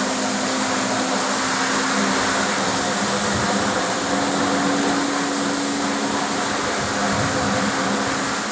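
Walk-behind floor scrubber dryer running: a steady whir from its vacuum and brush motors, with a constant hum underneath.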